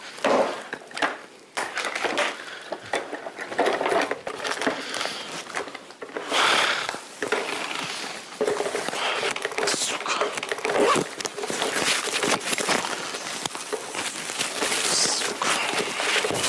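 Irregular knocks, clicks and rustling from people moving about and handling things in a small room, with faint voices now and then.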